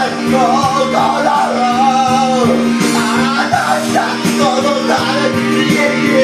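A man sings into a handheld karaoke microphone over an instrumental backing track, his voice wavering and gliding through a held melodic line.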